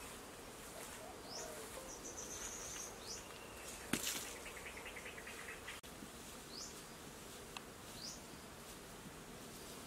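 Forest ambience: a bird gives short rising chirps four times, with a brief steady whistle and a fast pulsing trill in between. A single sharp click about four seconds in is the loudest sound.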